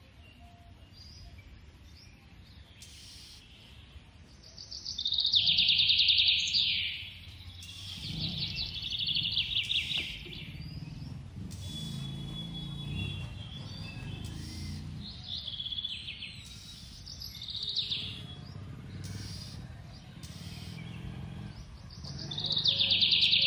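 Bursts of rapid, high bird-like chirping, each burst a fast run of chirps slurring downward in pitch. The bursts come four or five times, loudest about five seconds in and again near the end.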